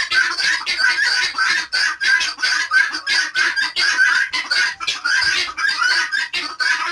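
A mixed flock of helmeted guineafowl and chickens calling without pause, a dense chatter of short calls repeated several times a second.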